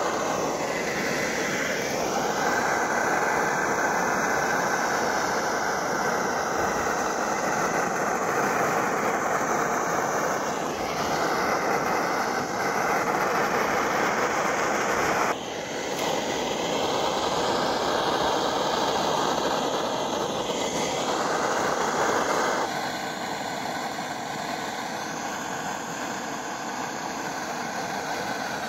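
Restored brass gas blowtorch burning, its blue flame giving a steady hiss. The sound breaks off suddenly for an instant about halfway through and gets a little quieter near the end.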